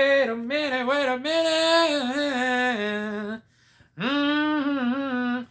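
A woman's voice in drawn-out, sung vocalizing without clear words, in two phrases with a short break about three and a half seconds in.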